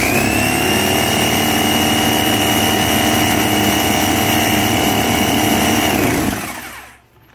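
Electric drill spinning a Yamaha Jog scooter's magneto flywheel at high speed, to test the ignition pickup coil's voltage at high revs. A steady high whine that has just spun up holds, then winds down and stops about six and a half seconds in.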